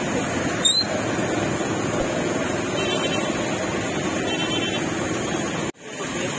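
Heavy rain pouring down, a steady dense hiss, with a short click about a second in and a brief sudden dropout near the end.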